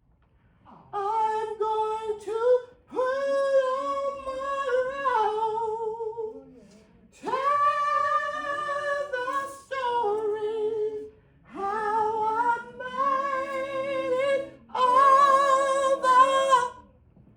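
A woman singing solo and unaccompanied, in four phrases of long held, high notes with vibrato and short breaths between them.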